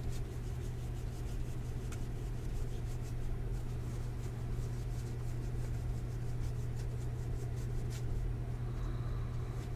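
Trading cards being handled and slid over one another, a soft rustle with a couple of faint ticks, over a steady low electrical hum.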